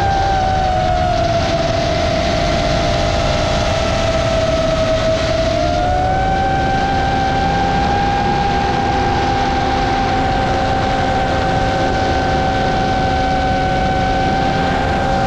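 FPV quadcopter's brushless motors and propellers whining steadily in cruising flight, over a rush of wind noise on the onboard camera's microphone. About six seconds in the whine splits into two pitches, one rising and one falling, as the motor speeds change.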